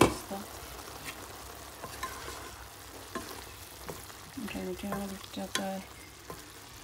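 Vegetable curry sizzling in a pan while a wooden spatula stirs it, with scattered clicks of the spatula against the pan. The loudest sound is a sharp knock at the very start.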